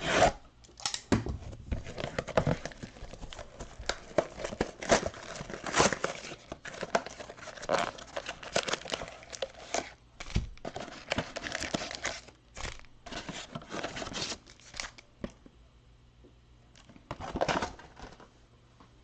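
A Panini Prizm Premier League soccer card mega box being torn open: cardboard and wrapping tearing and crinkling in many quick, irregular bursts for about fifteen seconds, then one more short burst near the end.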